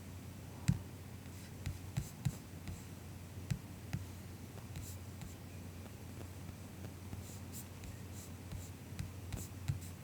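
Soft MacBook keyboard keystrokes: scattered single taps and short clusters with pauses between them, over a low steady hum.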